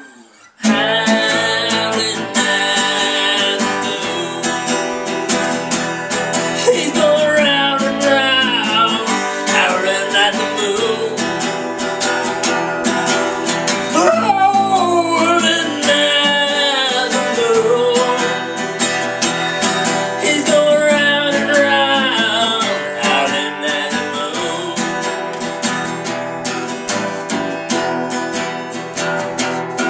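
Acoustic guitar strummed steadily while a man sings along in long, sliding notes. The music starts about half a second in after a brief pause.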